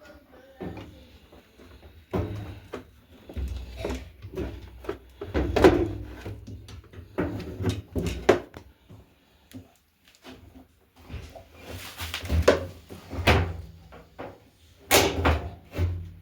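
Irregular clunks, knocks and scraping of top-loader washing machine parts being handled and fitted together, like panels and suspension rods being moved into place.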